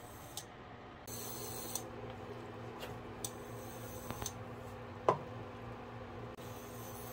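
Light kitchen handling sounds: a few soft clicks and taps, then one sharp clink of a utensil against cookware about five seconds in, with a short ring. A steady electric hum comes on about a second in and runs under them.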